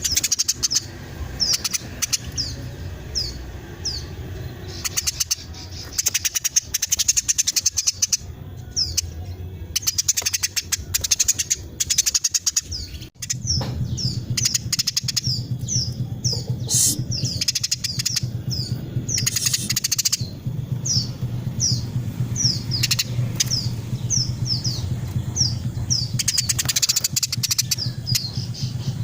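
Female Eurasian tree sparrow calling in a fast, tightly packed run of high chirps and chattering trills. A low steady hum sits under the calls from about halfway through.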